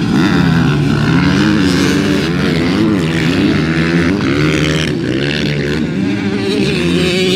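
Motocross dirt bike engines revving, their pitch rising and falling continuously as the bikes ride the track.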